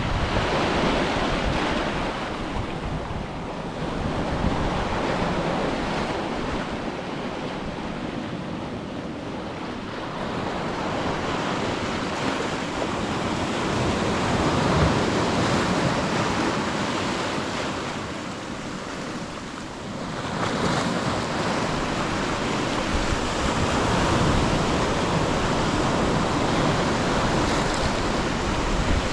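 Ocean surf breaking on a beach, the wash of waves swelling and easing every several seconds, with some wind buffeting the microphone.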